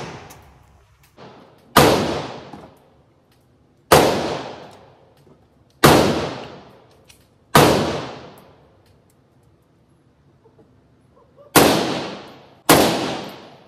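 Six single rifle shots from a Galil Ace SAR chambered in 7.62, spaced roughly two seconds apart with a longer pause before the last two. Each shot echoes and dies away in an indoor range booth.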